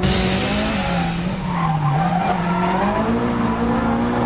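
Nissan 180SX drift car's engine revving hard, its pitch rising and falling with the throttle, over the hiss of tyres squealing as the car slides sideways, heard from inside the cabin.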